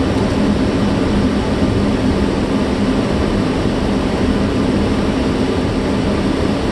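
Steady flight-deck noise of a Boeing 757-300 in flight: rushing airflow and the drone of its twin turbofan engines, with a steady low hum underneath.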